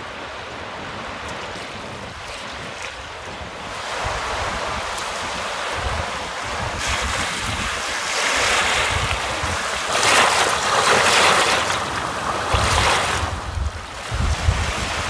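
Strong gusty wind buffeting the microphone with a low rumble, over choppy lake water washing. The gusts swell louder from about halfway through, easing briefly near the end.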